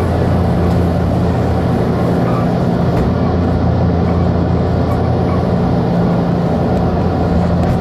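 Interior running noise of a JR Kyushu 883 series limited express car at speed: a steady rumble of wheels on the rails with a low, even hum, heard from inside the passenger cabin.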